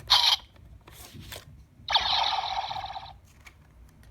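Bandai DX Diend Driver toy gun, modified to read homemade rider cards. A short, sharp burst and a couple of clicks, then about a second of electronic sound effect from the toy's small speaker.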